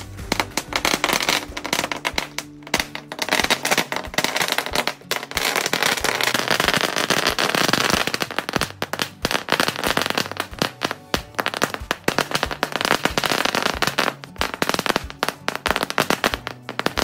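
A 20,000-wala chain of firecrackers going off: a dense, continuous rattle of rapid sharp bangs as the string burns along its length.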